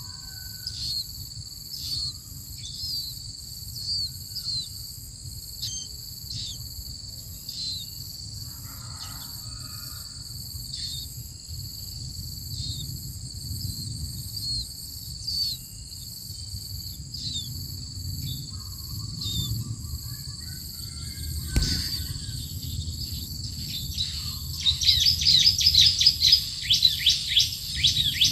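Steady high insect buzz with short, falling bird call notes about once a second, a single knock past the middle, then near the end a rapid, loud chatter of chirps from bar-winged prinia nestlings begging at the nest.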